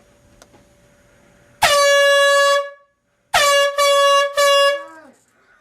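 Handheld canned air horn blasting: one long blast of about a second, a short pause, then three quick blasts back to back, the last one sagging in pitch as it dies away.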